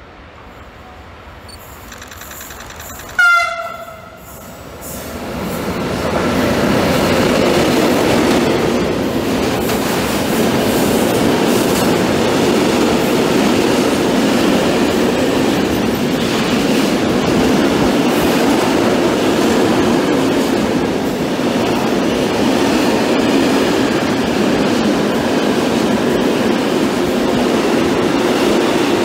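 An electric locomotive hauling a freight train gives one short, loud horn blast about three seconds in. The train then passes close by at speed: a long rake of open box wagons rumbling and clattering steadily on the rails.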